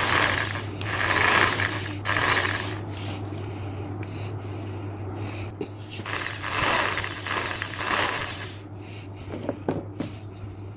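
Pro'EKCO EK-JS500 500 W electric jigsaw run with no load in about five short bursts, three close together at the start and two more past the middle. In each burst the motor whine and the buzz of the reciprocating blade rise in pitch and then fall away as the trigger is pressed and let go.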